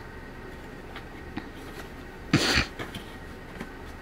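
A single short cough about halfway through, with a few faint clicks of small objects being handled around it.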